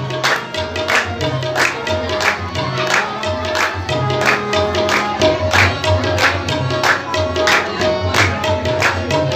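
Qawwali music: a harmonium holding a sustained tone and tabla drums, over a steady beat of hand-clapping.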